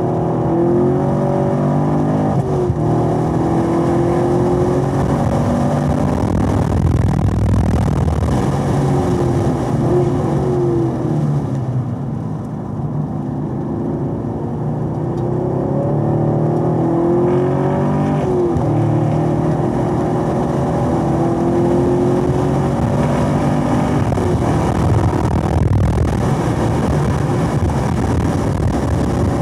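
Chevrolet Camaro SS 1LE's 6.2-litre V8 running hard, its pitch climbing under acceleration and breaking off at the gear changes. About twelve seconds in it drops in level as the car lifts off and slows for a tight corner, then pulls again up through the gears.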